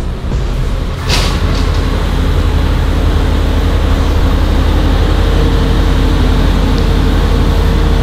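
Diesel engine of a 70-tonne mobile crane running loud and steady as it hoists a concrete wall panel, with a sharp click about a second in as the engine picks up.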